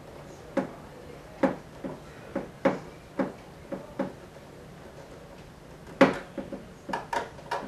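A run of sharp, irregular clicks and light knocks from hands and a screwdriver working at the plastic housing and screw holes of a 24-inch flat-screen TV, about a dozen in all, the loudest about six seconds in.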